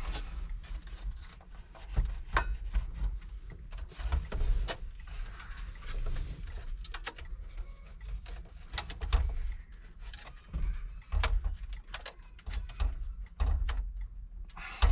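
Scattered small clicks and knocks from hands handling parts of a pickup's dashboard instrument cluster, with low bumps and thumps in between.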